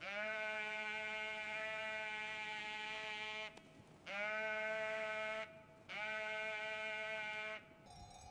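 Sheep bleating in three long, drawn-out calls. The first lasts over three seconds and the next two are shorter, with brief pauses between them.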